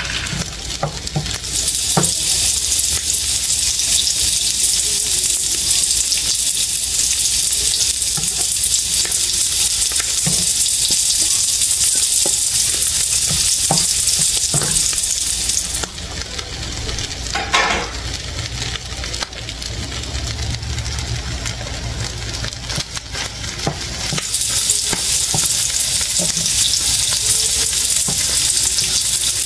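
Fried rice sizzling in a nonstick frying pan as a wooden spatula stirs it, with scattered clicks and scrapes of the spatula against the pan. The sizzle drops for several seconds past the middle, then comes back up.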